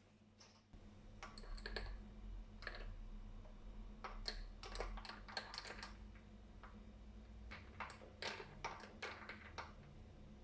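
Scattered light clicks and taps in small clusters, over a faint low steady hum.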